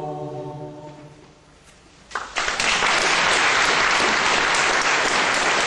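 A choir's held final chord fades away, and after a short pause an audience bursts into applause about two seconds in, clapping steadily from then on.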